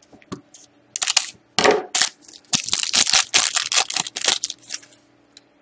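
Foil wrapper of a Panini Titanium hockey card pack crinkling and tearing as it is ripped open by hand, a quick run of sharp crackles that stops about five seconds in.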